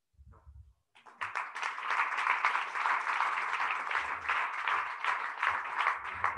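Audience of a few dozen people applauding. The clapping starts suddenly about a second in, runs dense, and begins to thin out near the end.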